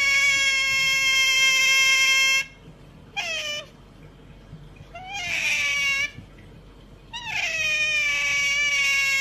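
A cat meowing in long, drawn-out, steady calls: one held for over two seconds, a short falling meow, another brief call, then a second long held meow near the end.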